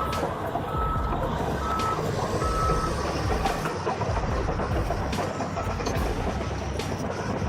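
Bulldozer's reversing alarm beeping at an even pace over the low rumble of the working machine. The beeps stop about three seconds in, while the rumble and occasional knocks carry on.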